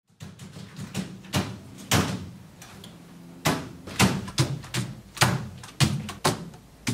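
Computer keyboard keys struck hard one at a time, hunt-and-peck style: a dozen or so loud clacks about half a second apart, pausing for about a second and a half in the middle, over a steady low hum.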